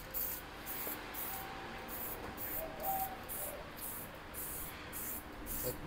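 Aerosol can of Motip heat-resistant spray paint hissing in short, quick spurts, about two or three a second, as a coat goes onto a scooter exhaust pipe.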